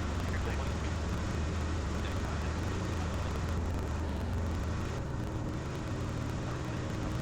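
Cessna 172 Skyhawk's piston engine and propeller in cruise, a steady low drone heard inside the cockpit.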